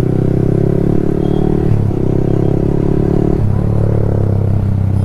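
Yamaha R15 V3's single-cylinder engine running loud through an aftermarket exhaust while riding, its note changing briefly about two seconds in and again at about three and a half seconds.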